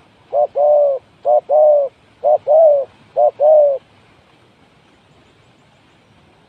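Spotted dove cooing: four paired coos, each a short note followed by a longer arched one, in a steady rhythm about once a second, then it stops just under four seconds in.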